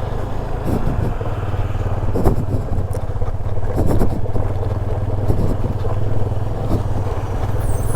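Motorcycle engine running at steady low revs while riding over rough offroad ground, with scattered knocks and rattles from the bike.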